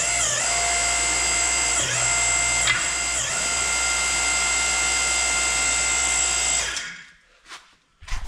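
Hydraulic pump unit of a home-built tractor splitting stand running with a steady whine, its pitch sagging briefly a few times as the valve levers are worked, then shutting off about seven seconds in. The stand is being jacked up tight under the tractor to take its weight.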